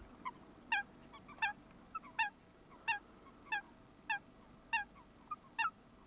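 Eurasian coot calling: a string of short, sharp, slightly downslurred notes, the loud ones coming about every 0.7 s with fainter notes in between.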